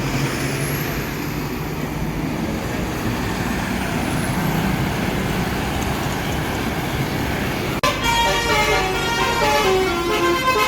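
Bus engine and traffic rumble, then about eight seconds in a basuri telolet horn, a multi-tone musical air horn, starts playing a tune of quick stepping notes.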